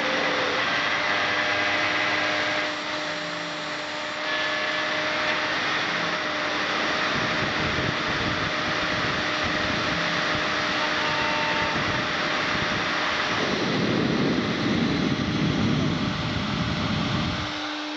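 Desktop CNC milling machine's spindle running with a steady whine over a loud rushing noise, briefly quieter about three seconds in, with a rougher, louder stretch near the end.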